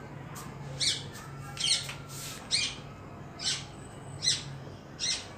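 A bird calling again and again: six short calls, each sliding down in pitch, about one every 0.8 seconds, over a low steady hum.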